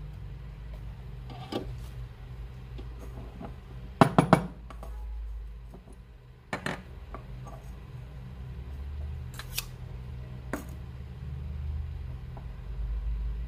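Scattered clinks and knocks of manual espresso press parts being handled: a plastic dosing cup lifted off a basket of ground coffee and metal parts set on the countertop. The loudest is a quick double knock about four seconds in, over a low steady hum.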